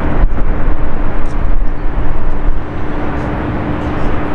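Airbus A380-861's four Engine Alliance GP7200 turbofans during landing: a loud, steady rumble with a steady hum through it, which quietens somewhat a little over two and a half seconds in.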